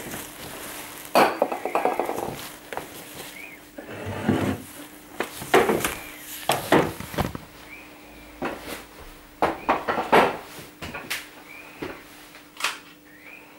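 Camera handling noise: a run of irregular knocks, clatters and rustling as the handheld camera is moved about and set down, over a faint steady hum.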